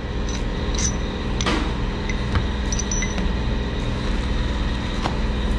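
Steady low rumble of an engine idling in the background, with a few light clicks of metal parts being handled.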